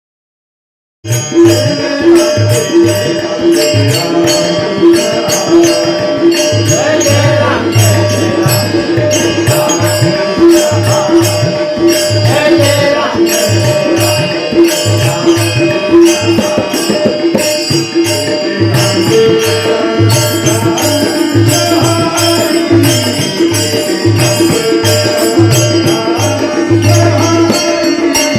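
Marathi devotional bhajan music: tabla keeping a steady rhythmic beat under held melody notes and quick high percussion strokes, starting after about a second of silence.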